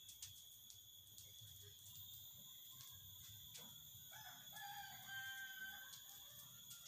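A faint rooster crow, one drawn-out call lasting about two seconds, starting about four seconds in. A steady, high insect buzz runs underneath.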